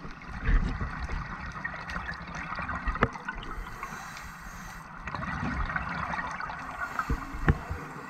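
Underwater recording of a scuba diver's regulator: bubbling and gurgling of exhaled air in uneven bursts, over a constant fine crackling.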